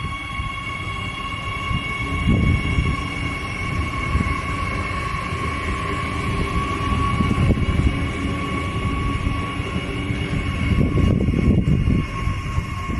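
Adelaide Metro 4000 class electric multiple unit running past, with a steady high whine over the low rumble of its wheels on the rails, the rumble swelling a few times.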